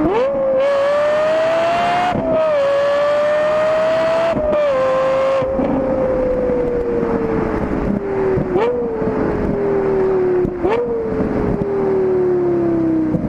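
Lexus LFA's 4.8-litre V10, recorded right at the exhaust tip, pulling hard up through the revs with two quick upshifts in the first few seconds. After that the revs fall slowly as the car slows, with three short throttle blips as it shifts down.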